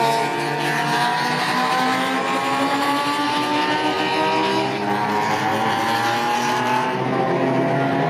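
A classic car's engine under hard acceleration, its pitch rising slowly and steadily for several seconds before fading near the end.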